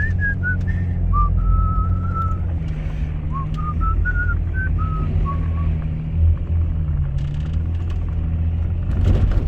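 4x4's engine and tyres droning steadily inside the cab, with someone whistling a short tune of held notes over it for the first five seconds or so.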